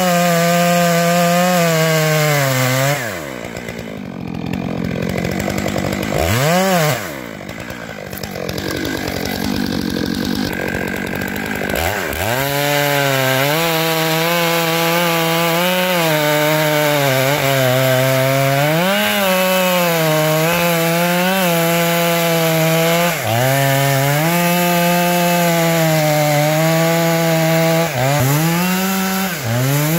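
Chainsaw cutting into a large tree trunk, making the back cut of a felling cut above a face notch. It drops to idle about three seconds in and revs once briefly. Around twelve seconds in it goes back to full throttle in the cut, its pitch dipping and recovering under load.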